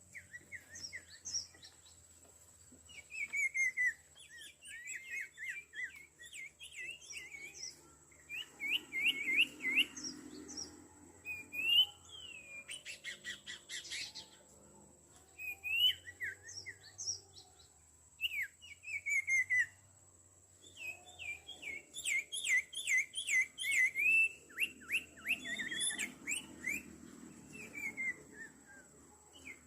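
Small songbirds, the sirtu being lured to the trap, calling in quick runs of sharp downward-sliding chirps, run after run with short gaps. A steady high tone runs beneath them.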